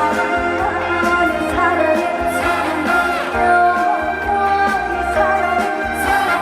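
Live trot song: a woman singing held, wavering notes over an amplified backing band with a steady beat.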